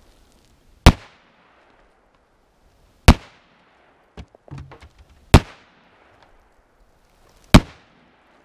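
Four rifle shots from a Marlin Model 444S lever-action in .444 Marlin, evenly spaced a little over two seconds apart, each with a short echo. A few small clicks and a soft knock come between the second and third shots.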